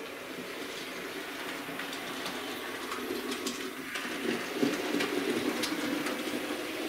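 Hornby OO gauge model of the West Country class locomotive Blackmoor Vale running on the layout track: a steady electric motor hum with scattered light clicks from its wheels on the rails.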